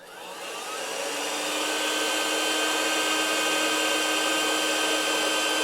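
Electric heat gun switched on, its fan motor spinning up over about two seconds and then blowing steadily, shrinking heat-shrink tubing over a zip cord as strain relief.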